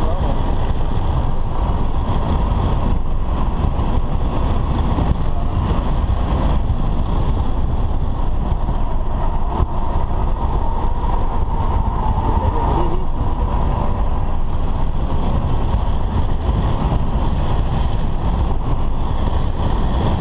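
BMW F10 5 Series sedan lapping a race circuit at speed, heard from inside the cabin: steady engine, tyre and wind noise with a heavy low rumble.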